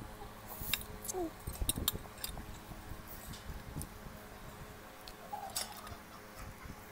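Close-up eating sounds: instant noodles slurped off a fork, then chewing, with several sharp clicks and clinks in the first couple of seconds.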